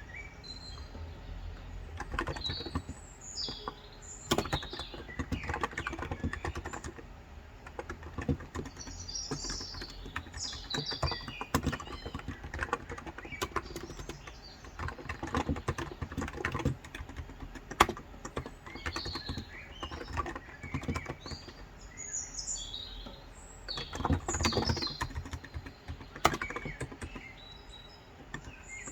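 Steady, irregular typing on a COX Endeavour tenkeyless keyboard with electro-capacitive (Topre-style), 35 g switches. Small birds chirp now and then in the background.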